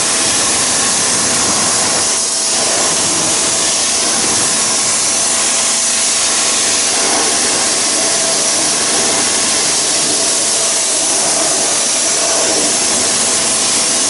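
Pressure washer gun with a swivel nozzle spraying water into a car's wheel arch: a steady, loud hiss of spray striking the arch.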